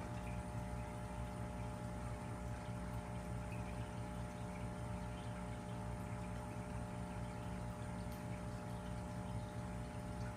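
Aquarium pump and air bubbler running: a steady hum with a faint wash of bubbling water.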